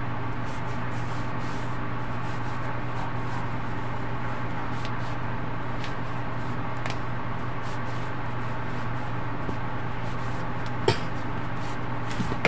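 Steady low electrical hum over a constant background hiss, with a few faint clicks and one short knock about eleven seconds in.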